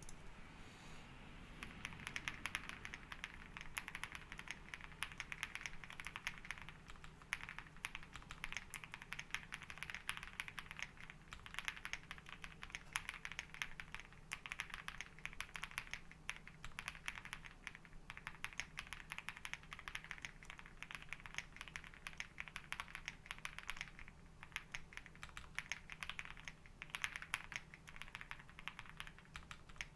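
Continuous typing on a Meletrix Zoom65 mechanical keyboard with KTT Strawberry linear switches, a polycarbonate plate and Polycaps PBT keycaps. Rapid keystroke clicks with short pauses start about a second and a half in.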